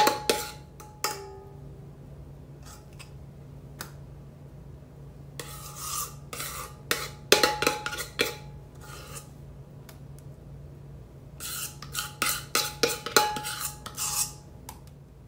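A spoon clinking and scraping against a bowl as whipped cream mixture is scooped out and dropped onto the ladyfingers, in three bouts of quick clicks and scrapes with short pauses between.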